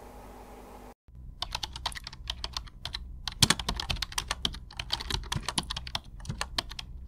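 Pen writing on paper, heard as a fast, dense run of short scratches and ticks, starting about a second in after a brief silence.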